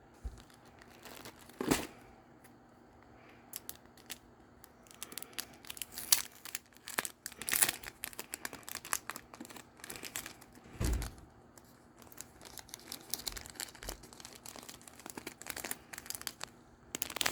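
Paper packaging being handled, crinkling and rustling in irregular bursts, with a louder thump about two seconds in and another about eleven seconds in.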